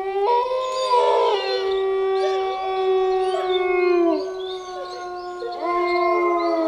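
Wolves howling in a chorus: long, held howls overlap at different pitches. The lowest howl drops away about four seconds in, and a new howl rises and holds near the end.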